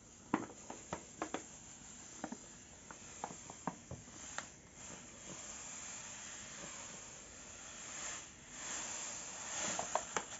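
Granulated sugar poured from a paper bag onto cut pears in a steel pot: a soft hiss of pouring crystals that starts about four seconds in and swells near the end. Before it come a few light clicks.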